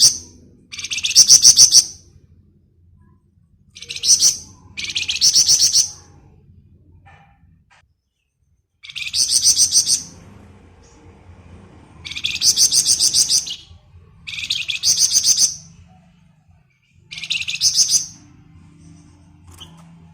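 Flamboyan songbird singing in its 'ngebren' style: about eight short bursts of rapid, high trilled notes, each about a second long, with pauses between them.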